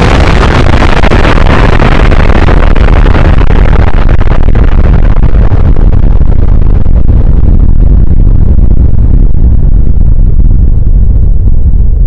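Nuclear explosion sound effect, very loud: after the blast, a dense rumble carries on, its hiss dying away over several seconds while the deep low rumble holds.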